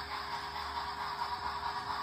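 Background music, steady throughout.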